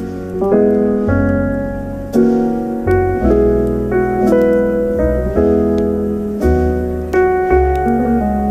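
Piano music: slow chords struck about once a second, each ringing and fading, over deep bass notes.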